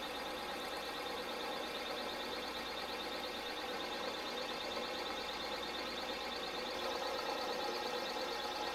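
Bridgeport milling machine running: a steady machine whine made of several even tones, starting and stopping abruptly.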